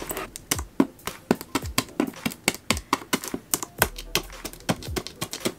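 Hands working open a taped cardboard shipping box: a quick, irregular run of sharp clicks and crackles from the packing tape and cardboard flaps.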